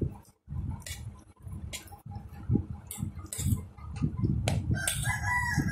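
Noodles being slurped and chewed, with short clicks of plastic forks on plates. Near the end a rooster crows once, one long call.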